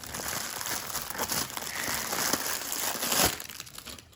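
Plastic packaging crinkling as it is handled and pulled open to unwrap a Slinky, with a sharp click about three seconds in; the crinkling dies down near the end.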